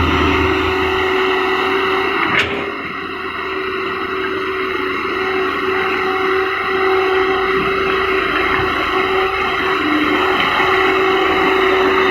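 Excavator's diesel engine running steadily with a hydraulic drone, and one sharp metallic clank about two and a half seconds in.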